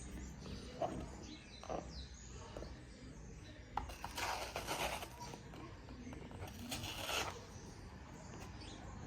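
Hands working upholstery fabric over a part: a few light clicks and taps, then two spells of rustling and scraping of about a second each, near four and seven seconds in.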